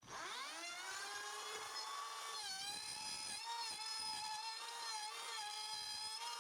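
Wood router's motor starting up, its whine rising in pitch over about a second, then running at a steady high pitch with a few brief small dips.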